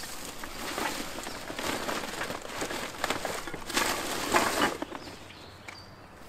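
Plastic garbage bag rustling and crinkling as it is pushed into a fabric trash carrier, loudest about four seconds in, then dying down.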